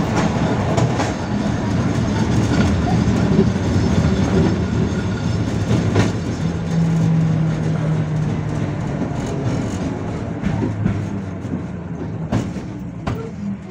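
71-605 (KTM-5) tram running on its rails: a steady rolling hum with wheels clicking over rail joints now and then. It grows quieter near the end as the tram slows.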